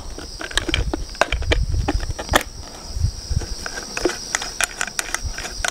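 Scattered clicks and taps of hard plastic parts being handled and fitted together as a metal detector's control box is hooked and bolted onto its handle, with low handling rumbles.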